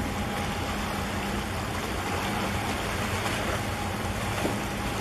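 Choppy harbour water washing and churning against the concrete tetrapods of a breakwater, a steady rushing noise, with a low, steady ship's engine hum underneath.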